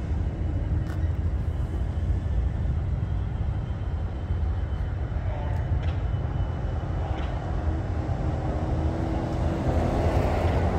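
Steady low rumble of a long freight train rolling slowly past, growing a little louder near the end.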